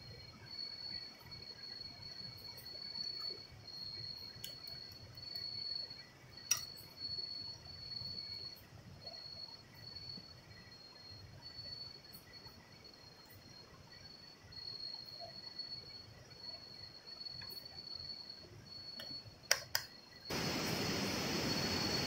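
Night insects trilling steadily in one high pitch, with a few faint clicks. About two seconds before the end a loud, steady rushing noise cuts in suddenly and drowns them out.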